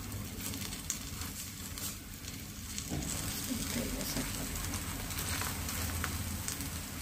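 Grated potato and egg patties sizzling in shallow oil on a flat pan, a steady frying hiss with scattered small crackles.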